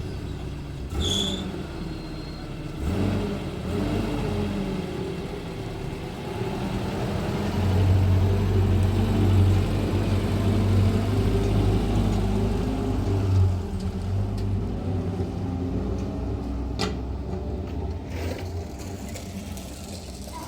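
A motor vehicle's engine running with a low hum while driving, growing louder for several seconds in the middle.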